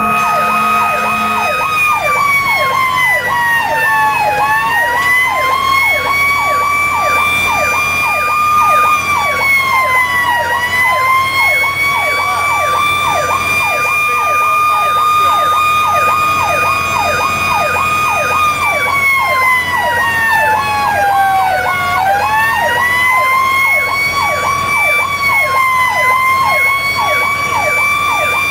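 Fire engine sirens on an emergency response, heard from inside the moving truck. Two run at once: a fast yelp sweeping up and down a few times a second, and a slower wailing tone that holds high, sinks three times, and winds back up.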